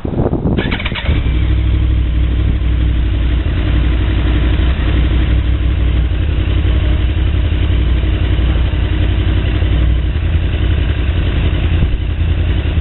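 2013 Yamaha YZF-R1's crossplane inline-four engine started on the electric starter, catching within about a second and then idling steadily.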